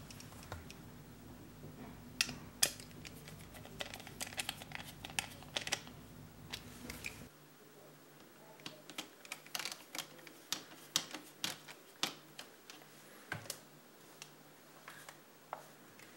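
Small precision screwdriver driving the two circuit-board screws into an optical mouse's plastic housing, with irregular light clicks and ticks of metal on plastic as the screws are placed and turned.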